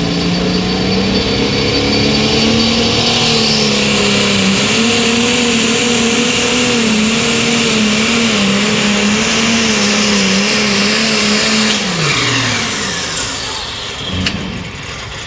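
Turbocharged diesel engine of an International pulling tractor at full throttle under load on the pull. The engine note climbs, with a high whine rising alongside it, then wavers and drops away about twelve seconds in as the throttle comes off. A single sharp crack sounds near the end.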